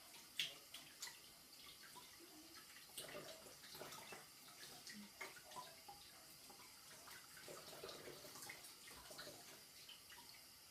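Faint sound of hands being washed under a running tap at a sink, with irregular small splashes and drips.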